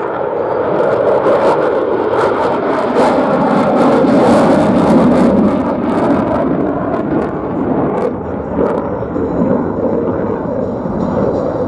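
F-35A Lightning II's F135 jet engine roaring as the fighter flies its demo. The sound swells to its loudest about four to five seconds in, then eases, with a crackling edge throughout.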